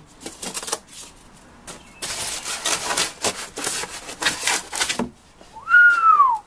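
Foam packing insert scraping and rubbing against a cardboard box as it is forced out, in rough bursts. It ends with a loud squeak that rises and then falls in pitch.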